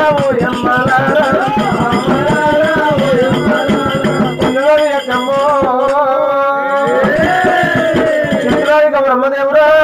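Oggu katha folk singing: a voice sings long held, wavering notes over fast drumming on the oggu drum with jingling percussion. The drumming thins out for a couple of seconds about halfway, then picks up again.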